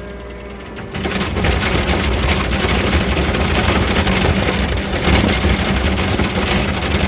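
An engine running steadily, then revving up about a second in and working hard with a fast, dense mechanical clatter.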